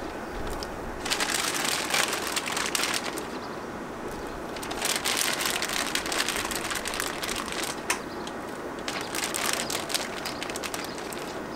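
A plastic bag crinkling and rustling in three bursts as its contents are shaken out into a pot of boiling water, over the steady rush of a propane burner.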